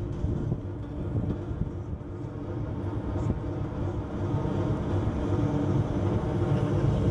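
A low, steady mechanical rumble with a faint hum, slowly growing louder: a large engine or passing transport.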